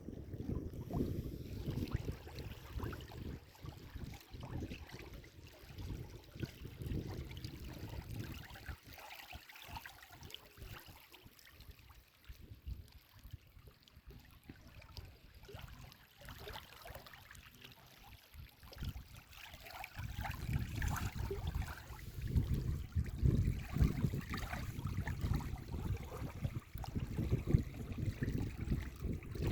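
Water of a stream flowing and trickling, a steady rushing noise with a low rumble that eases off in the middle and grows stronger again about two-thirds of the way in.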